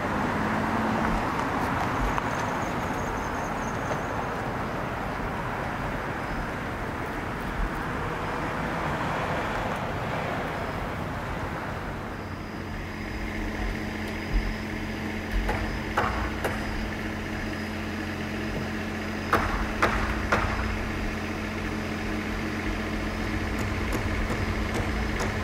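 Motor vehicles running. A rushing traffic noise gives way about halfway through to a steady low engine hum, with a few sharp knocks in the second half.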